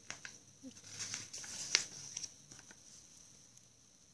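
Paper pages of a softcover book being turned by hand: a few short rustles and flicks, the sharpest a little under two seconds in.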